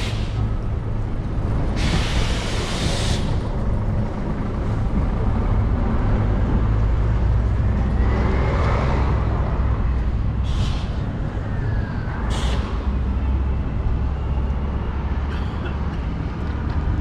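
City traffic outside a station: a steady low rumble of road vehicles, with a bus's air brakes hissing for about a second, about two seconds in, and shorter hisses a few seconds later.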